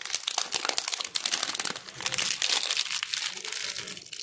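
Thin plastic wrapping crinkling as it is handled, a dense run of small crackles.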